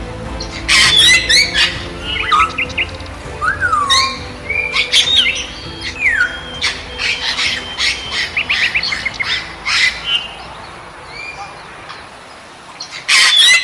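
Birds calling: a mix of short chirps, harsh squawks and quick falling whistles, thinning out briefly before a loud burst of calls near the end.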